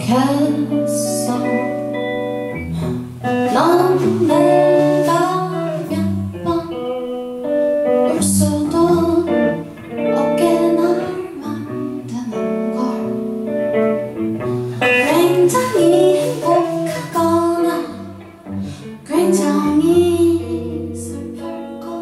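A woman singing live with her own acoustic guitar accompaniment, sung phrases with long held notes over strummed chords, with short breaks between phrases.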